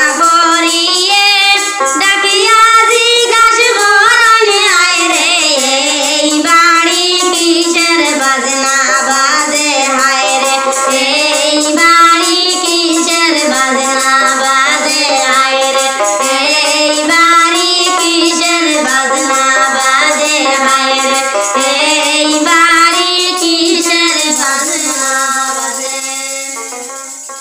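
Woman singing a Sylheti wedding song (biyar gaan) over music accompaniment, the melody rising and falling in long sung phrases; the song fades out near the end.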